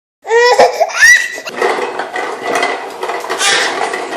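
A young child squeals twice, the second squeal rising in pitch. Then a continuous plastic rattling and clicking follows, typical of a toy push lawnmower being rolled along.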